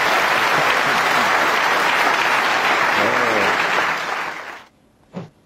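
Snooker arena audience applauding, with a voice briefly heard about three seconds in. The applause fades and stops abruptly just before the end, followed by a single short click.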